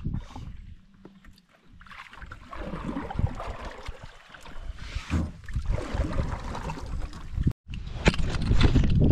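Canoe paddling: a wooden paddle stroking through lake water with the splash and wash of the strokes. Near the end, loud rubbing and bumping as a fleece sleeve brushes over the microphone.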